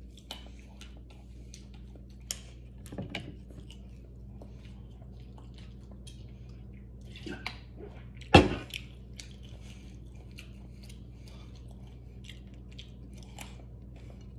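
A person chewing almonds, with small irregular crunches. A brief loud vocal sound about eight seconds in, over a low steady hum.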